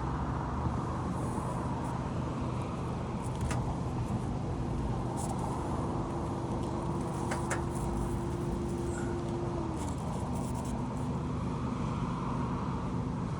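Steady outdoor background drone of machinery or traffic, with a low steady hum that drops slightly in pitch about ten seconds in, and a few faint sharp clicks or taps.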